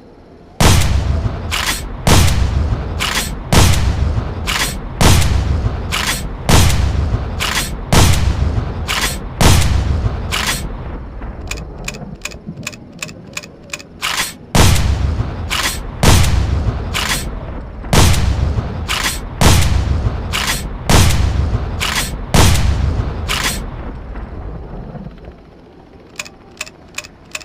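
Remington 870/Mossberg 500-style pump-action shotgun sound effect: seven shots about one and a half seconds apart, each followed by a smaller click of the pump being racked. Then a run of quick light clicks, then six more shots and racks in the same rhythm, and a few light clicks near the end.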